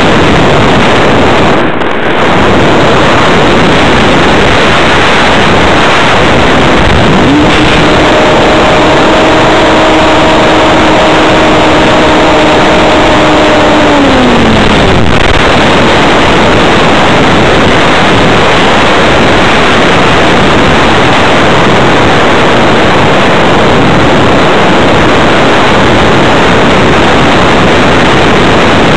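Loud, steady rush of airflow over the onboard camera of a fast electric RC hotliner in flight. About seven seconds in, a steady hum from the electric motor and propeller comes up. It holds for several seconds, then drops in pitch and fades near the middle as the motor is throttled back.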